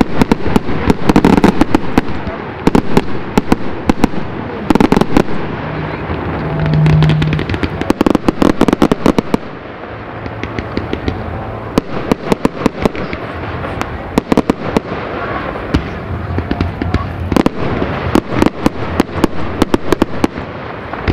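Fireworks display: a rapid, uneven series of bangs and crackles from aerial shell bursts and ground-fired effects, with busier volleys near the start and again in the second half.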